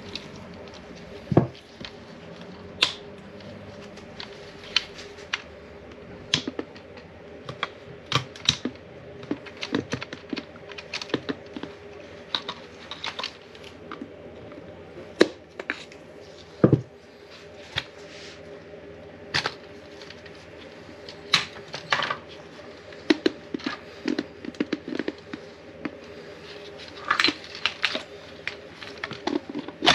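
Plastic fuel pump module being prised and worked apart with a metal rod and pliers: irregular sharp clicks, snaps and knocks of metal on hard plastic, over a faint steady hum.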